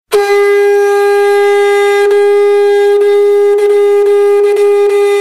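A horn-like wind instrument holding one long, steady note that starts abruptly.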